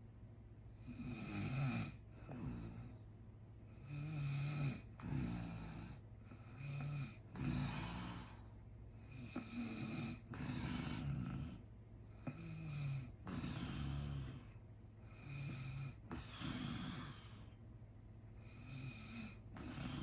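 A sleeping man snoring in a steady rhythm, a new snoring breath every second or two, over a faint steady low hum.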